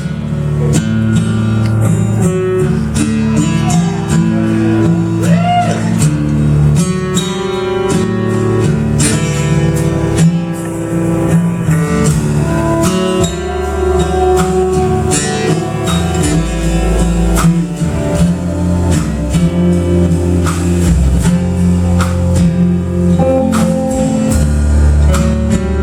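Live band playing an instrumental introduction led by guitars, with steady low notes underneath and sharp percussive hits throughout.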